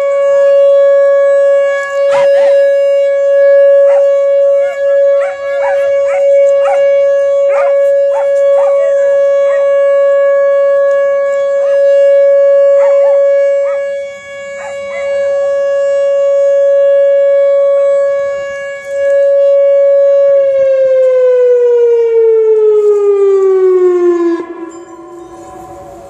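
Outdoor tornado warning siren sounding a steady tone, then winding down in falling pitch from about 20 seconds in. Over the first half, a dog barks repeatedly and howls back at the siren.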